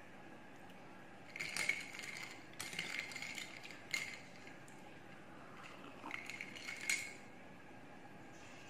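Long metal spoon stirring iced milk coffee in a glass, with several short bouts of clinking as the spoon and ice cubes knock against the glass.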